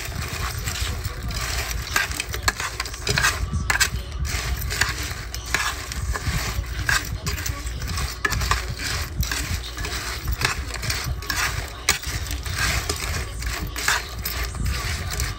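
A hand mixes live freshwater crabs with salt in a pan, making a continuous irregular clatter of crab shells and legs clicking against each other and against the pan.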